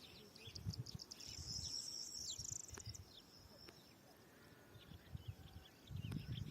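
A small songbird singing a high, rapid trill that lasts about the first three seconds, over a faint low rumble.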